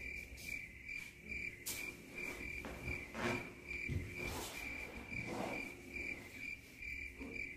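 A cricket chirping steadily, about three chirps a second, with a few soft rustles and knocks from people moving in the room.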